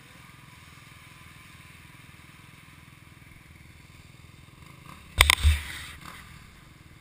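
Dirt bike engine idling low and steady. About five seconds in, loud knocks and rubbing as a gloved hand handles the camera.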